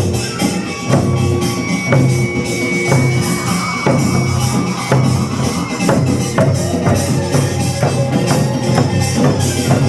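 Korean traditional accompaniment for the Jindo drum dance: strong buk barrel-drum strokes about once a second over rapid high percussion and held melodic tones from the ensemble.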